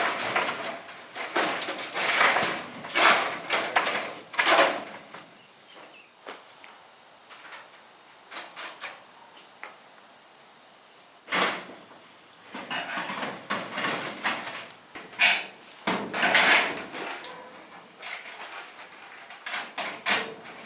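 Irregular clanks and rattles of steel arch panels and bolts being handled, coming in clusters with quieter gaps between, over a steady chirring of crickets.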